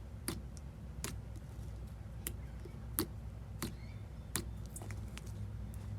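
Slime being pressed and worked by hand, giving about eight sharp pops and clicks at irregular intervals, over a low steady hum.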